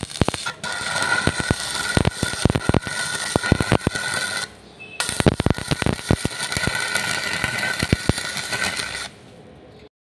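Stick welding arc crackling and sizzling as the electrode welds a steel bar to a thin square tube. The arc breaks off for about half a second roughly halfway through, strikes again, and stops near the end.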